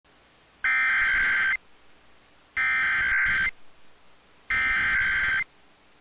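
NOAA Weather Radio EAS (SAME) header: three shrill, buzzing digital data tones, each just under a second long and about a second apart. The header codes a severe thunderstorm warning.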